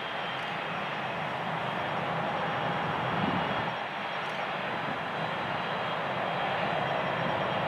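Boeing 757-200 jet engines running as the airliner turns on the runway: a steady rushing noise with a thin high whine, getting a little louder toward the end as the exhaust blast picks up.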